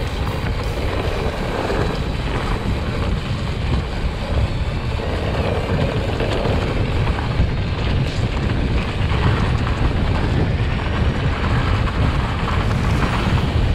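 Mountain bike rolling along a trail with wind buffeting the microphone: a steady rushing noise with a heavy low rumble.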